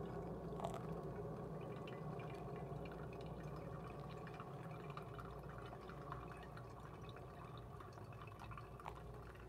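Hot water poured in a thin, steady stream from a gooseneck kettle onto coffee grounds in a V60 pour-over dripper, a faint continuous trickle and drip.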